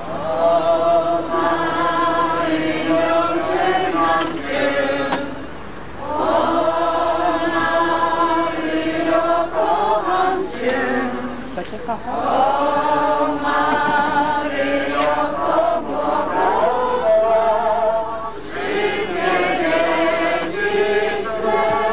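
A group of voices singing a religious hymn in long held phrases, with short pauses between the lines.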